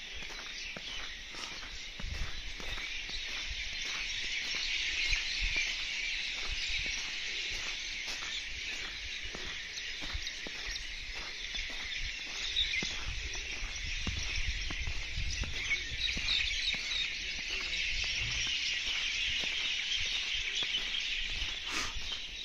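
Footsteps on a snowy road at a steady walking pace, about two steps a second, under a constant high-pitched hiss and chirping.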